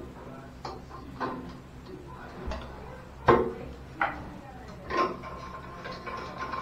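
A few sharp clicks and knocks of hands fitting and handling parts on a shower mixer valve set in the wall, the loudest about halfway through. A faint steady tone comes in near the end.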